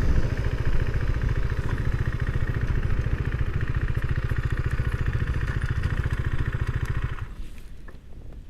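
A vehicle engine running steadily with an even, rapid pulse. It stops about seven seconds in.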